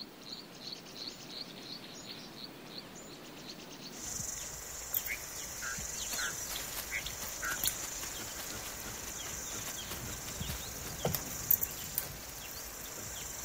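Outback bush ambience of birds and insects. A high chirp repeats about three times a second at first. Then the sound changes abruptly to a steady high insect drone with scattered short bird calls and a few faint clicks.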